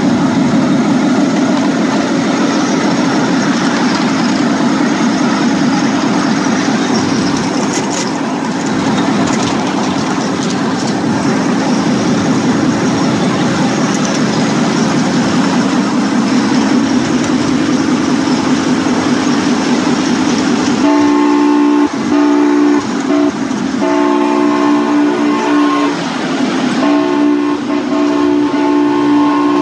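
Ride-on miniature electric locomotive running along the track: the steady hum of its drive motor and gearing, with wheels on the rails. About two-thirds of the way in, its horn sounds in several separate blasts, each a second or more long.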